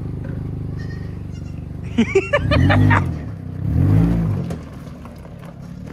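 Toyota Corolla four-cylinder engine running through a long open gutter-pipe exhaust, idling steadily and then revved twice in short swells that rise and fall, about two and a half and four seconds in. A short, loud, high-pitched call cuts in about two seconds in.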